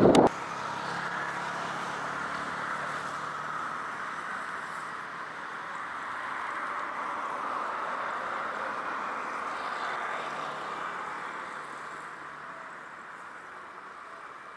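Boeing 737-800's CFM56 jet engines at low power as the airliner taxis, a steady whine and rush that fades near the end. A louder rushing sound cuts off abruptly just after the start.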